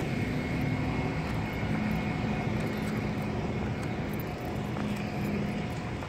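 Steady outdoor traffic noise with a low, even engine hum.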